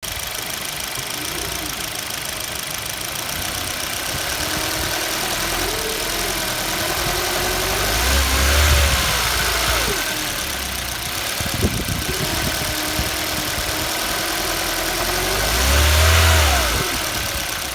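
Hyundai Elantra AD with its engine running while its engine mount creaks, a series of wavering, gliding squeaks. The sound swells twice, about eight seconds in and near the end, with a single click in between. The creak is a common fault of this car's engine mount, caused by sand and grit lodged in it.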